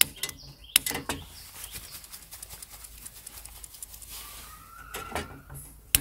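A disposable lighter being struck again and again inside an alcohol stove's windscreen: sharp clicks with faint quick ticks between them, while the ethanol burner fails to catch.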